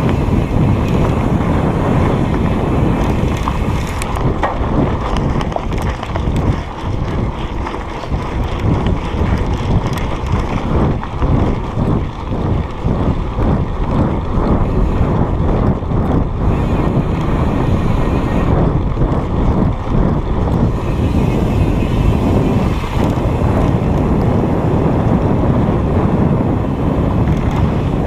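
Heavy wind buffeting on the microphone of a moving rider, with a run of knocks and rattles from rough ground through the middle.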